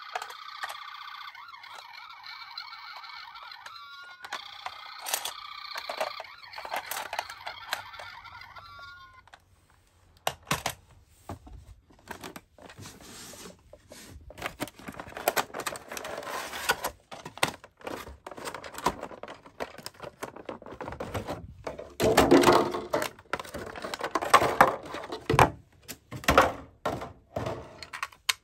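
A toy ambulance's electronic siren sound plays steadily for about nine seconds, with short sliding tones in it. Then it stops and there are clicks and rustling from handling a boxed toy ambulance's cardboard-and-plastic packaging, loudest about two-thirds of the way through.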